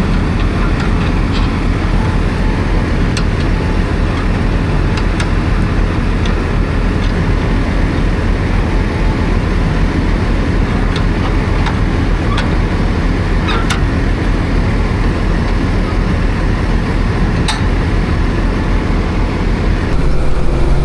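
Farm tractor engine running steadily, with scattered sharp clicks and rattles over the drone.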